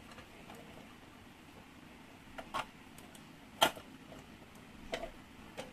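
Hard plastic clicks and knocks as the small doors of a toy refrigerator are handled and snapped shut: about five, the loudest a sharp snap about three and a half seconds in.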